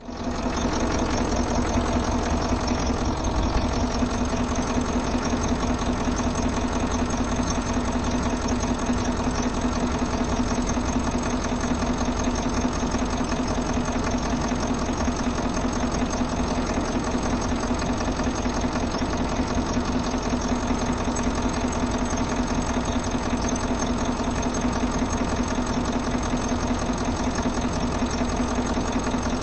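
Diesel engine idling steadily, a continuous mechanical rumble with a rapid clatter and a steady hum, starting abruptly and holding even.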